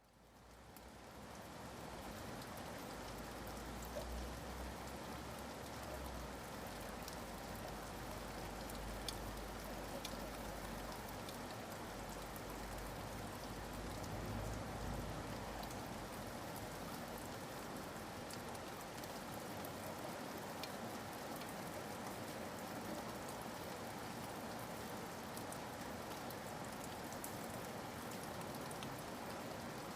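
Steady rain falling, an even hiss scattered with the ticks of single drops, fading in over the first couple of seconds. A low rumble runs under it through roughly the first half.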